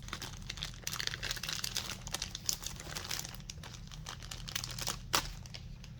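Packaging crinkling and crackling as it is handled and pulled open to get at enamel bookmarks, with one sharper crackle about five seconds in.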